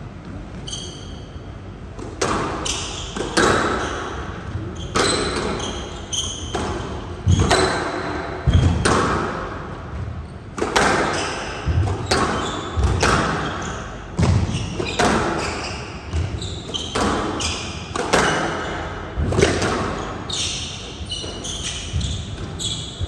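Squash rally: the ball cracking off racquets and the court walls every half-second to second, each hit echoing in the hall, starting about two seconds in. Court shoes squeak sharply between shots.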